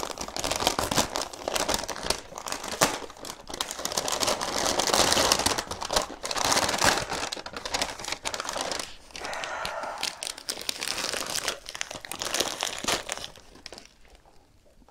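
Paper wrapping around a potted plant crinkling and rustling as it is handled and pulled open. It dies down near the end.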